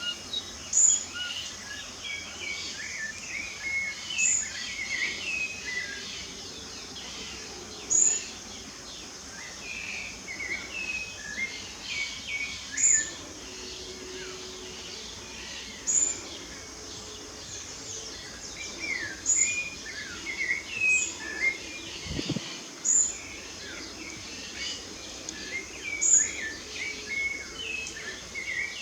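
Several songbirds singing together in a busy chorus of overlapping chirps and warbles. A thin, very high note repeats every three to four seconds over a steady background hiss.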